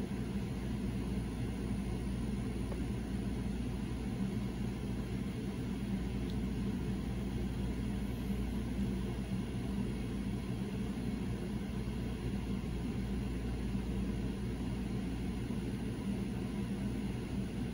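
Steady low hum of the small electric motor in a rotating display turntable, with a constant hiss and no change in pitch.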